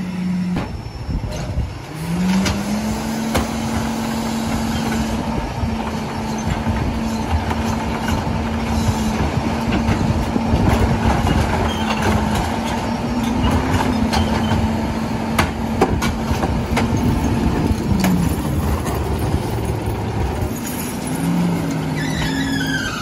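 McNeilus rear-loader garbage truck's diesel engine revving up and held at a raised speed to drive the hydraulics while the cart tipper lifts and dumps a recycling cart, with knocks and clatter from the cart and hopper; the engine drops back toward idle near the end. A short falling high squeal follows close to the end.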